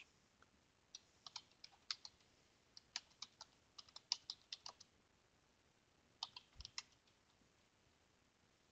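Typing on a computer keyboard: a quick, faint run of keystrokes for about four seconds, then a short burst of a few more after a pause.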